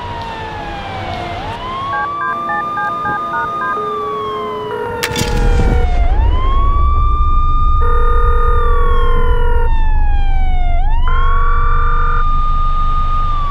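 Police siren wailing, climbing quickly, holding, then sliding slowly down, about three cycles, as the sign that the police are coming. Short beeps sound about two to three seconds in, steady tones come and go, and a low rumble grows louder about five seconds in.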